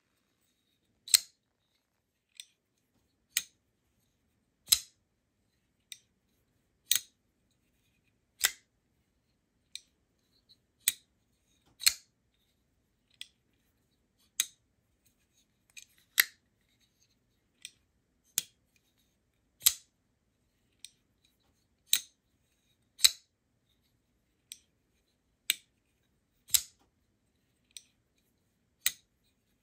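EMPEDC Nymble W folding knife being flicked open and shut over and over: sharp metallic clicks of the blade snapping open and closed, roughly one a second, alternating louder and softer.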